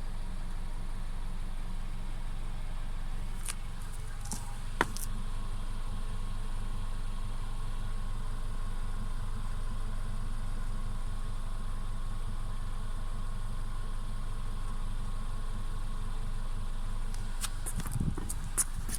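Mercedes-Benz CLA 250's 2.0-litre turbocharged four-cylinder engine idling steadily, with the constant rattling noise the owner is trying to trace. A few short sharp clicks sound about four seconds in and again near the end.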